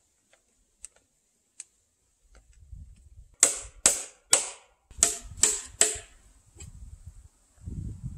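Six sharp hammer blows in two sets of three, about two a second, nailing a wooden brace board to a wooden post.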